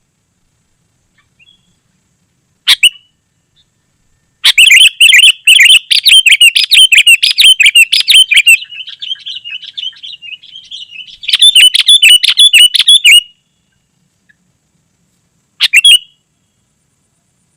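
Sooty-headed bulbul (kutilang) singing in fast, dense bubbling chatter: a short call, then a long loud bout that trails into softer warbling, a second loud bout, and one more short call near the end.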